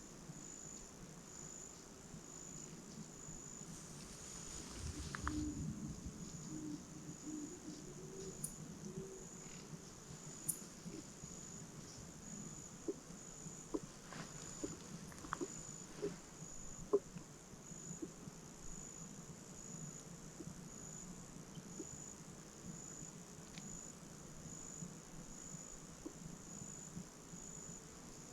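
An insect chirping steadily in a high, even pulse about twice a second. A brief rustle comes about five seconds in, and a run of light ticks or snaps sounds around the middle.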